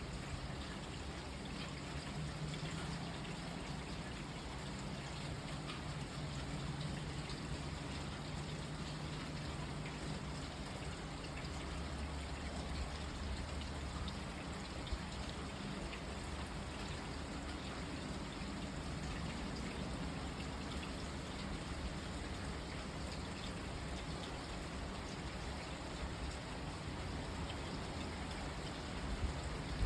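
Rain falling steadily, an even patter with a faint low rumble underneath.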